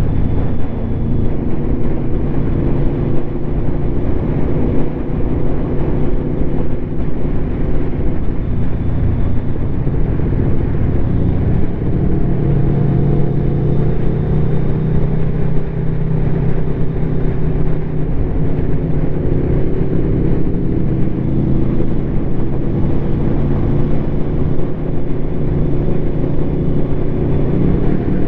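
Aprilia Tuono V4's V4 engine with an SC Project slip-on exhaust, running under way at fairly steady revs, its pitch drifting gently up and down.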